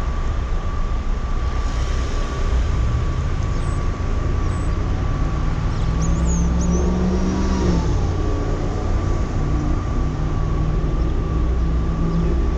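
2004 Ford Focus driving: engine and road rumble with a thin steady high whine. The engine note rises about five seconds in and drops near eight seconds.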